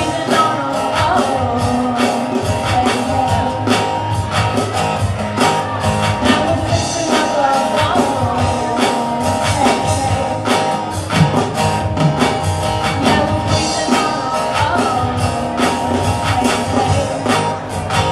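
Acoustic guitar strummed in a steady rhythm while a woman sings, a solo indie-rock song played live.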